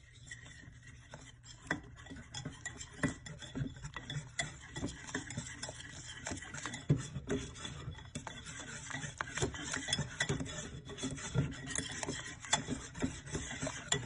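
Whisk beating eggs and flour in a bowl, a continuous scraping stir with quick, irregular clicks of the whisk against the bowl as the batter is blended.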